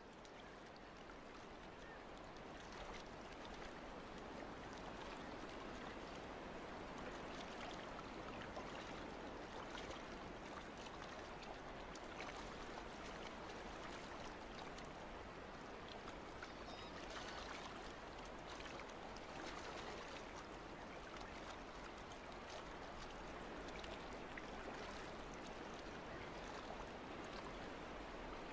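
Faint, steady trickling and sloshing of harbour water around a docked boat's hull and the dock pilings, an even hiss with a few small ticks.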